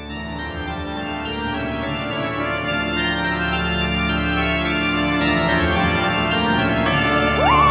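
Background music: sustained organ chords fading in and growing steadily louder. Near the end a high tone slides up and holds with a wavering pitch.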